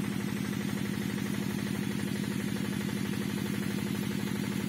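Small engine-driven water pump running steadily with an even, fast throb, pumping water into a fish pond.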